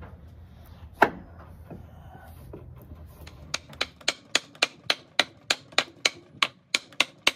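A single knock about a second in, then a steady run of hammer blows on a wooden block held against a Logan 200 lathe's spindle, about three to four a second, driving it into the headstock.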